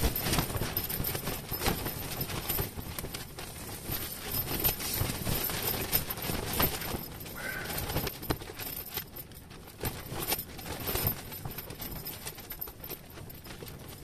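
Wind buffeting the fabric of an ice-fishing tent, giving irregular rustles and soft knocks that rise and fall in gusts.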